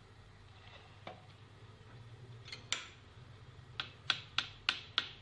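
Light, sharp clicks and taps, about six in the second half, a few tenths of a second apart, as hands work the food on a cling-film-lined tray.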